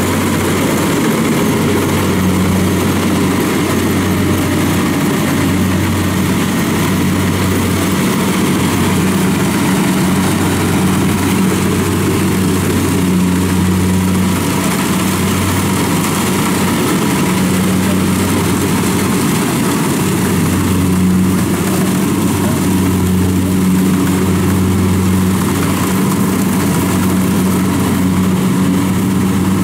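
Kubota DC70 combine harvester's diesel engine and threshing works running steadily under load while it cuts and threshes rice. It is a loud, continuous low drone that slowly swells and fades, with a busy mechanical rush above it.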